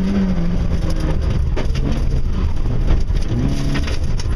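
Fiat Seicento rally car's engine heard from inside the cabin, its note dropping off and then climbing again about three seconds in as the car is driven hard through a corner, with scattered short knocks from the rough surface.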